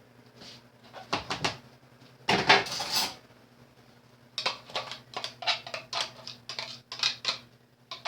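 Kitchen utensils and dishes knocking and clinking: a few knocks, a louder clatter, then a run of quick taps.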